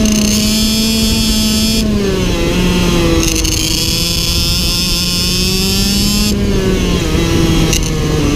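IAME X30 Super 175 cc two-stroke shifter kart engine running hard on track. Its pitch drops about two seconds in and again about six seconds in, the high buzz fading each time as the throttle comes off, and climbs steadily between.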